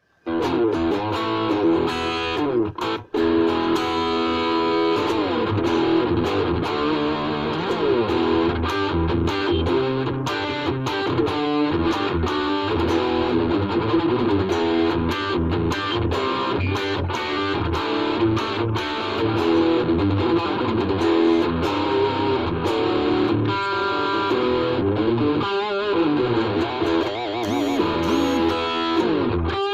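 Ibanez RG350DX electric guitar, freshly set up, played through a Vox Soundbox Mini amplifier: a continuous run of picked notes and chords with sliding pitches around five seconds in and a brief break about three seconds in.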